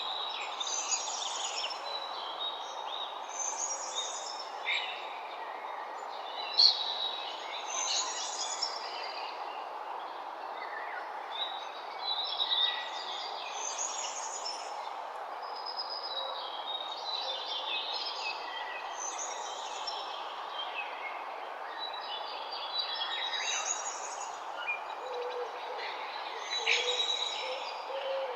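Morning birdsong: many birds chirping and trilling in overlapping phrases over a steady background hiss.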